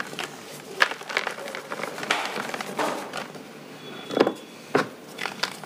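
Hands crushing and crumbling molded blocks of dyed blue powder: irregular dry cracks and crunches as the pieces break apart, with one louder crack about four seconds in.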